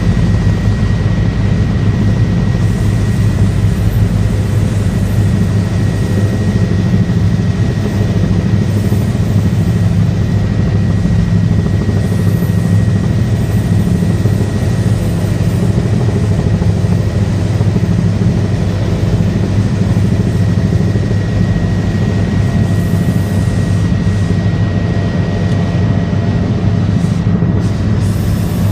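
Helicopter in flight: loud, steady rotor and engine noise with a thin, steady high whine over it.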